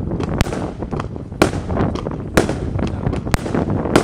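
Lesli Volt! 'Copper Gold' firework firing aerial shots: four loud bangs about a second apart, with smaller pops between them, as the shots burst into gold, red and green stars.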